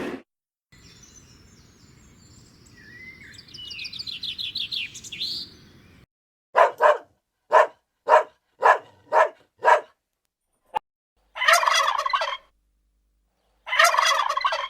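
Farm birds calling. First comes a faint high chirping trill over light background noise. Then there is a run of about eight short calls, roughly two a second, and two longer rattling calls near the end.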